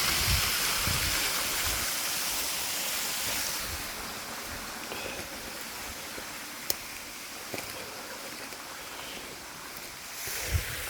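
Small two-tier step waterfall on a burn, a steady rush of falling water that drops a little in level about four seconds in. A single sharp click is heard about seven seconds in.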